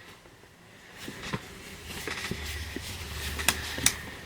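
Faint rustling and a few light clicks from a t-shirt and its packaging being handled, with a low hum from about halfway.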